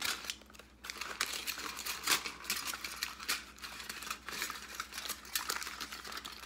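Aluminium kitchen foil crinkling and crackling in the hands, a snipped sheet being twisted and scrunched into shape, with many small sharp crackles.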